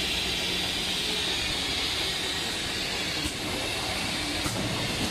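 Automatic screw-capping machine and its plastic-chain bottle conveyor running: a steady hiss and hum, with a couple of faint clicks about three and four and a half seconds in.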